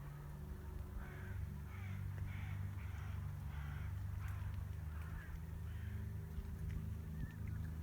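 A run of distant harsh bird calls across the open bog, about two a second, starting about a second in and fading by about six seconds, over a steady low rumble.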